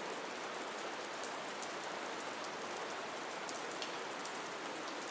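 Steady soft rain: an even hiss with scattered light drop taps.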